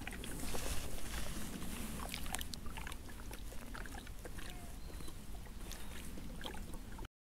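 Outdoor ambience with a steady low rumble and scattered small clicks and taps, as of tackle being handled. It cuts off abruptly about seven seconds in.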